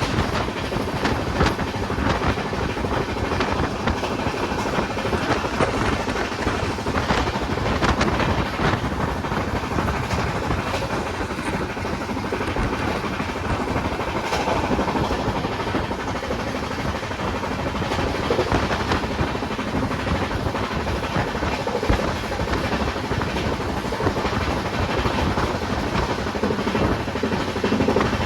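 Indian Railways train running on the tracks: a steady rumble with the wheels clicking over rail joints.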